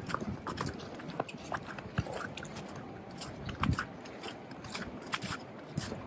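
Footsteps crunching in fresh snow at a steady walking pace, about two steps a second.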